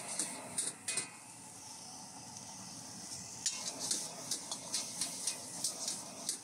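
Food sizzling in a hot wok under a steady frying hiss. A metal spatula scrapes and knocks against the wok, a few times in the first second, then in quick strokes several times a second from about halfway on.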